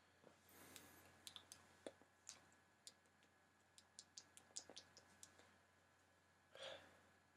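Near silence with faint, scattered clicks, a soft hiss a little after the start and a short soft hiss near the end.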